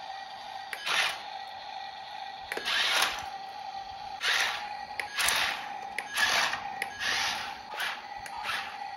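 Small electric drive motor and plastic gearbox of a toy RC dump truck whirring in short bursts, about one a second, as it is driven over sand, with a faint steady hum underneath.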